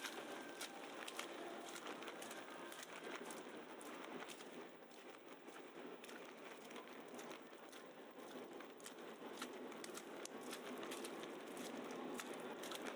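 Quiet snowy city street: footsteps crunching in snow, a soft crackle at a walking pace, over a steady hiss of distant city noise.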